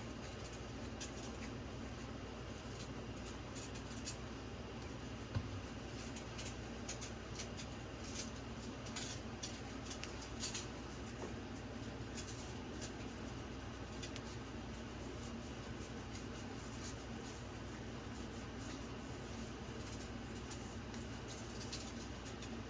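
Hands rolling and pressing dumpling dough: faint rubbing and soft taps over a steady low hum, with one sharper knock about five seconds in.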